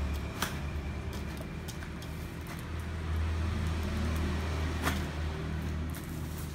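Fingers picking and scratching at clear packing tape on a cardboard box, with a couple of sharp clicks, over a steady low rumble.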